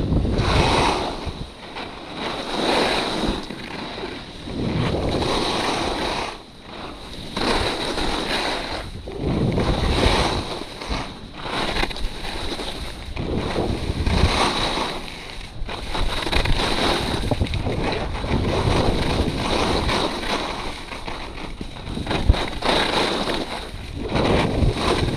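Skis carving and scraping over packed snow through a series of turns, a hissing surge with each turn roughly every two seconds, with wind rushing over the microphone.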